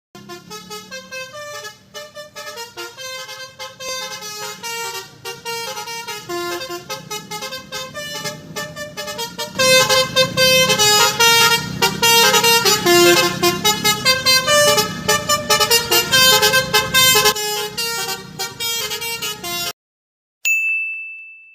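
Basuri V3 multi-tone telolet horn on a tour bus playing a tune in quickly changing notes. It gets louder about ten seconds in and cuts off suddenly near the end.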